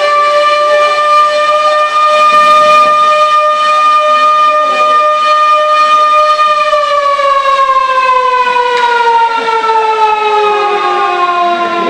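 Motor siren sounding the goal: a long steady wail that, after about six and a half seconds, winds down and falls slowly in pitch.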